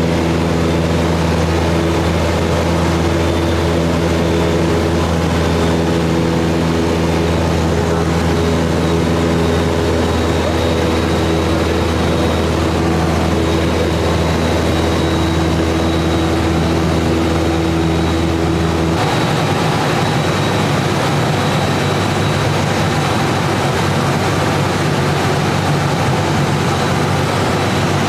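Cessna 172's piston engine and propeller running steadily in cruise, heard from inside the cabin as a loud, even drone. The engine note changes abruptly about two-thirds of the way through.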